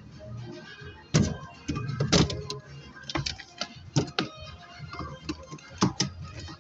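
Background music with a scattering of sharp clicks and knocks, the loudest about a second and two seconds in: hand work on the metal latch and key-cylinder parts inside a car door.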